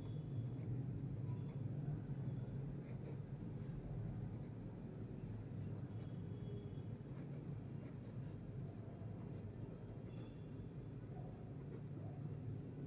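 Pen writing on ruled notebook paper: soft scratching of handwritten strokes over a steady low hum.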